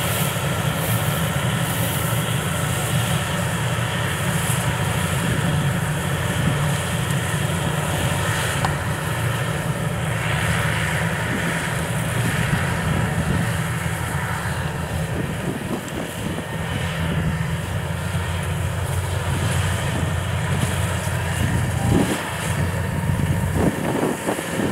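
Yanmar rice combine harvester running steadily as it cuts and threshes standing rice: a continuous low engine drone.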